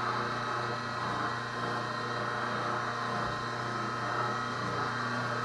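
An old motor-driven cylinder printing press running steadily, a constant mechanical drone with a low hum.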